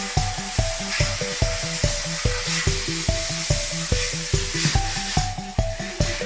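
Background music with a quick, steady beat and a stepping melody, over a steady hiss of water being sprayed to clean an air conditioner; the hiss eases off about five seconds in.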